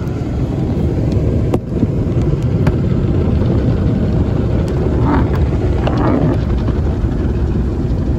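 Automatic car wash heard from inside the car's cabin: steady loud noise of water spray and spinning wash brushes beating against the windshield and body, with a sharp knock about a second and a half in.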